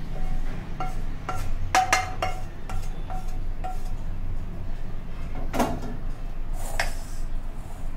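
A spatula scraping and tapping roasted besan out of a pan into a stainless steel bowl: a run of knocks against the pan and the bowl's rim, each leaving the steel bowl ringing briefly, with a low steady hum underneath.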